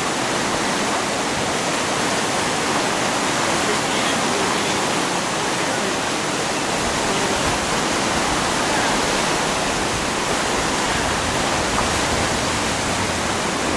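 Floodwater rushing in a loud, steady torrent.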